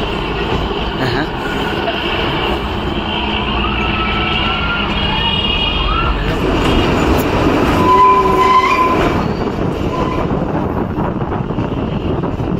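Kalka–Shimla narrow-gauge toy train running, a steady rumble and rattle of the carriages, with several brief high-pitched wheel squeals, the loudest about eight seconds in.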